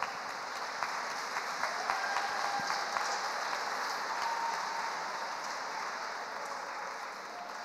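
Arena audience applauding, the clapping slowly dying away.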